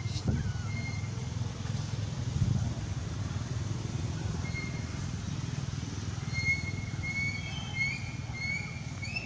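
Outdoor ambience: a steady low rumble, with short high chirping calls that repeat more often over the last few seconds.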